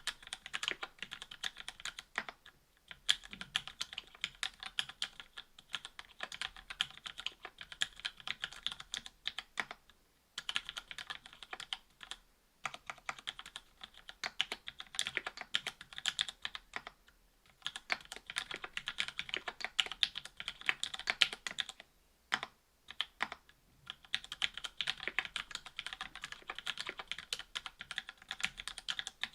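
Continuous typing on a mechanical keyboard with lubed Cherry Hyperglide MX Black linear switches, FR-4 plate and GMK keycaps: rapid runs of keystrokes broken by a few short pauses.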